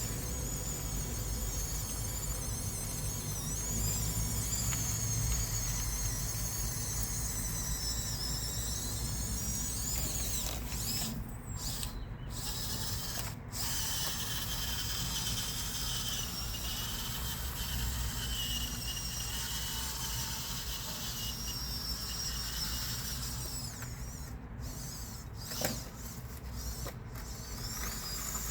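Electric drive motors and gearboxes of a Huina 1554 RC bulldozer whining as it drives, the pitch wavering with motor speed. The whine stops briefly twice, and there is a single sharp click near the end.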